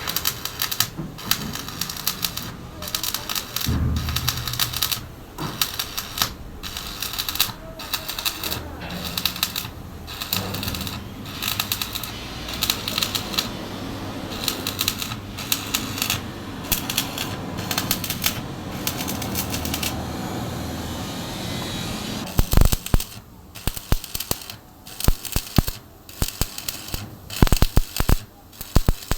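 Electric arc welding: a dense, steady crackle and sputter from the arc. Near the end it smooths briefly, then breaks into separate sharp cracks with short gaps.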